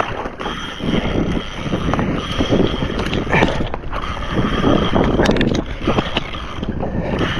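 Wind buffeting the microphone over choppy open water, with water sloshing against a kayak hull and a few sharp clicks around the middle.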